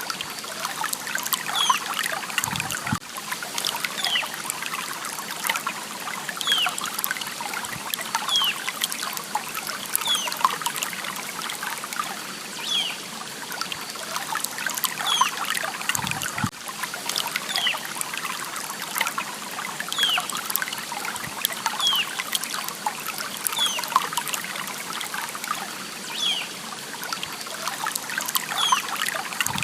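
A small stream trickling and splashing steadily, with a short high falling chirp recurring about every second and a half.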